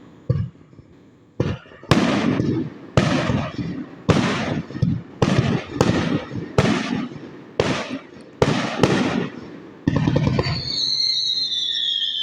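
Fireworks shells bursting overhead, about ten sharp bangs in quick succession, each with a short rumbling tail. Near the end a longer spell of sound with a high whistle falling in pitch.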